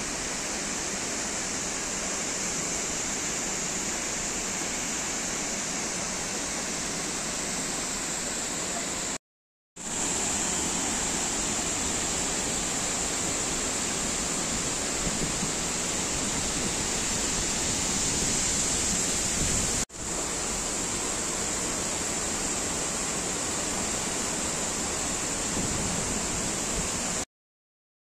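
Steady rush of a large waterfall: the Indravati River falling about 100 feet over a rock cliff. The sound breaks off briefly about nine seconds in and again near twenty seconds, and stops shortly before the end.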